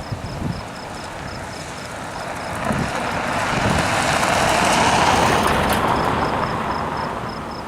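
A vehicle passing on a nearby road: tyre and engine noise swells over a few seconds, peaks just past the middle, and fades away. Crickets chirp steadily in an even high pulse throughout.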